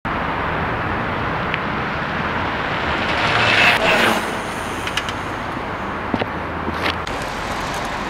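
Nirve Switchblade electric cruiser bike riding past close by on asphalt: tyre and road noise swells to a peak about four seconds in and then fades, over steady traffic noise.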